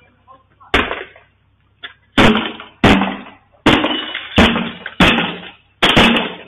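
House windows being struck over and over: about eight heavy crashing blows in quick succession, each trailing off in a rattling, ringing decay, as the windows are smashed.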